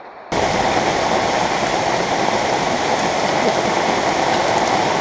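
Heavy rain pattering steadily on the canopy overhead. It starts suddenly a moment in.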